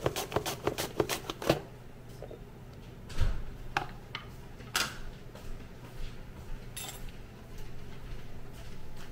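Apple being slid back and forth over a handheld mandoline slicer: a fast, even run of slicing strokes, about four or five a second, that stops about a second and a half in. After that, a few scattered light knocks and clicks as the slicer, slices and plastic container are handled.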